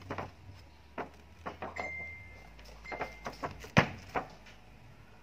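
Light clicks and knocks of things being handled on a table, with a sharper knock near the end, and two brief high squeaky tones partway through.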